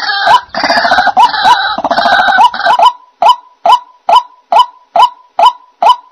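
White-breasted waterhen calling: harsh, overlapping croaking 'ruak ruak' calls for about the first three seconds, then a steady series of single 'kook' notes about twice a second.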